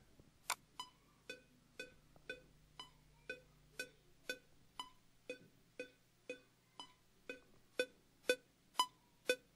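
Cubase's metronome click playing a steady beat of about two clicks a second, now heard after the click output was routed to the sound card in VST Connections.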